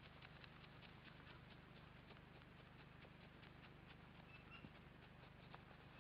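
Faint, irregular ticking and crackling over a steady low hum: a brooding kākāpō shifting on its nest.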